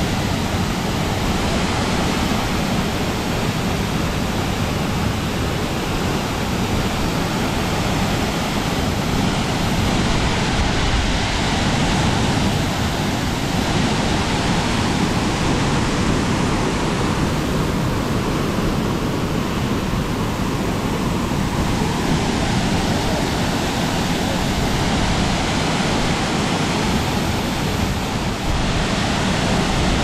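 A 100-foot waterfall pouring into its plunge pool: a loud, steady rush of falling water.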